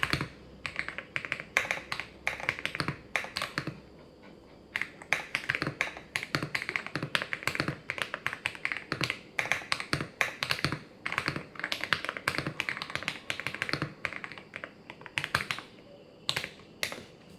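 Typing on a gasket-modded mechanical keyboard with Akko V3 Cream Yellow linear switches: quick runs of key presses with a creamy clack, broken by a short pause about four seconds in and another near the end.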